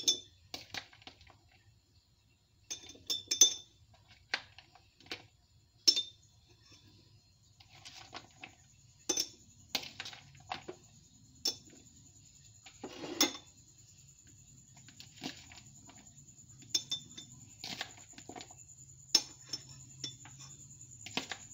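Irregular clinks and knocks of a glass jar being handled as sliced onions are tipped into it from a plastic bowl, with separate sharp taps scattered throughout.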